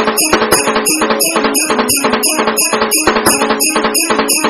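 Music with a fast, steady percussive beat of bright jingling strokes, about four to five a second, over a sustained melody.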